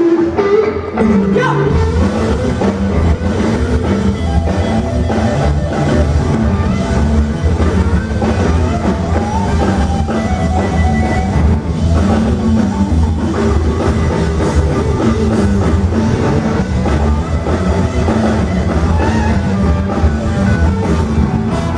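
Live rock band playing loud: drum kit, bass and electric guitar with a steady beat, and some singing over it.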